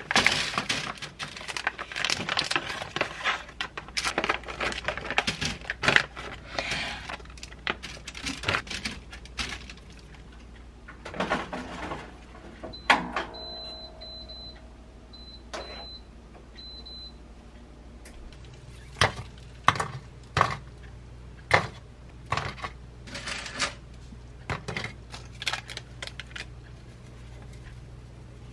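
Plastic food packaging crinkling and rustling as bags of frozen chicken are opened and emptied into an air fryer basket. About halfway through, a countertop air fryer oven gives a run of short high beeps as it is set to 200 degrees for 8 minutes. It then runs with a low steady hum, with a few sharp clicks and knocks over it.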